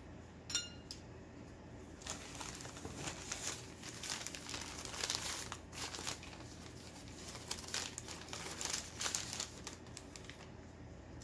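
Packing wrap crinkling and crumpling for several seconds as an item is unwrapped from a box, after a short clink about half a second in.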